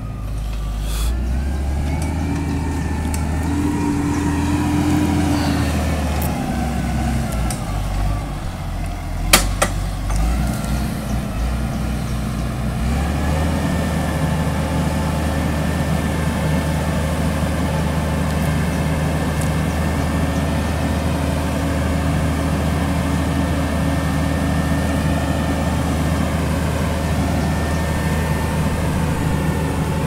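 Massey Ferguson 6465 tractor's diesel engine pulling a plough through a field, its pitch shifting up and down for the first dozen seconds and then settling to a steady run. A single sharp knock sounds about nine seconds in.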